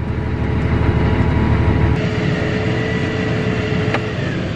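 Combine and grain-cart tractor engines running steadily while the combine's unloading auger pours corn into the cart: a deep drone with a thin steady whine over it. The drone changes about two seconds in, and there is a single click near the end.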